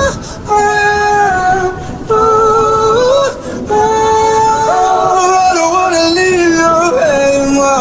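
Wordless a cappella singing: held, gliding vocal notes in short phrases with brief breaths between, over a steady hiss of rain.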